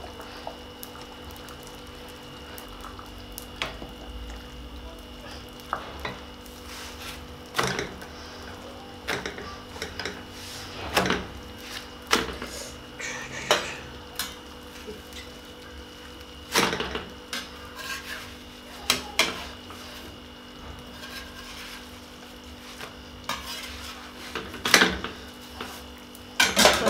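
Cookware clinking and knocking at scattered moments as green pepper strips are stirred with a wooden spoon into a steel pan of potato and minced-meat stew. A steady electrical hum runs underneath.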